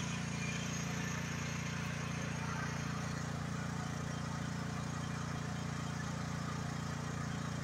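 An AGT Industrial H12 mini excavator's engine running steadily while the machine digs.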